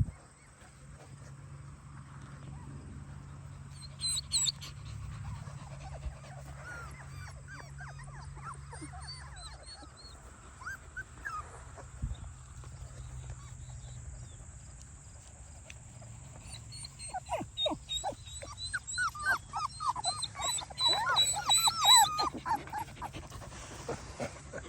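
Four-week-old puppies whimpering and squeaking in short, high calls. They are scattered at first, then a quick run of louder yelps comes in the last third.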